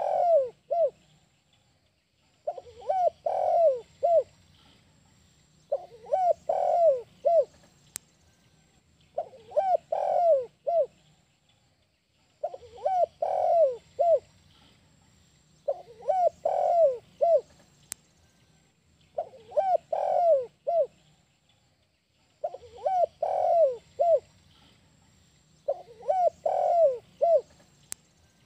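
Spotted dove singing its 'kuk 1' song: a cooing phrase of several short falling notes, repeated about every three seconds.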